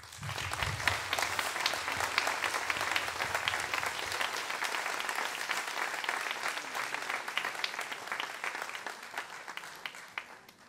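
Audience applauding: many hands clapping, starting suddenly and dying away near the end.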